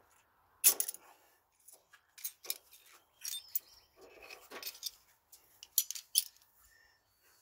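Hand tools and metal brake parts clinking and rattling as they are handled, in a series of irregular knocks; the sharpest comes about a second in.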